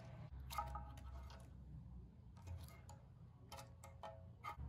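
A few quiet clicks and light clinks of valve cover parts being handled, over a low steady hum.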